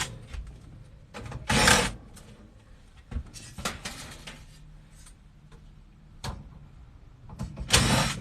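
Handling noises from work on a furnace: three short bursts of scraping and clatter with quiet stretches between them.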